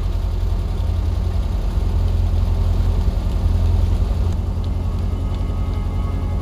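Classic open-top car's engine idling with a steady low rumble, heard from close up on the car itself.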